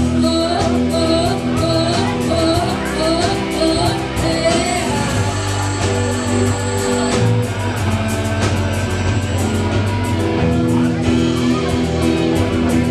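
Live rock band playing: a woman singing over electric guitars, bass guitar and drums, with keyboard.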